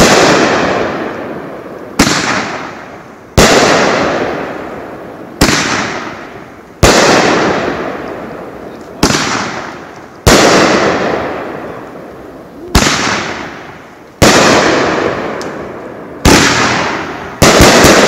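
A 16-shot 500-gram consumer fireworks cake firing: about eleven shells burst with a sharp bang every one to two seconds, each bang fading away over a second or so. Near the end a quick cluster of pops follows one another.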